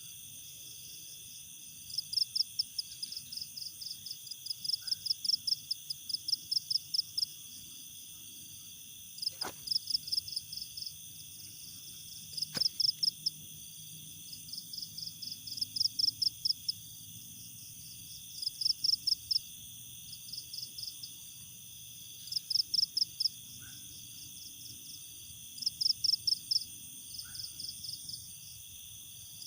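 Night chorus of insects and frogs: a steady high-pitched insect drone, with a loud pulsed chirping call that repeats in short trains every two to three seconds.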